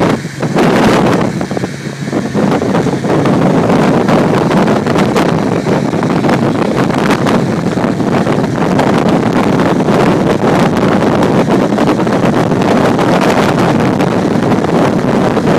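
Wind buffeting the microphone over the steady rush of a speeding motorboat and its churning wake, with two brief dips in the first couple of seconds.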